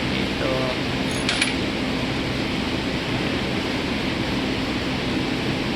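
Steady mechanical hum with one short metallic clink of metal parts about a second and a half in.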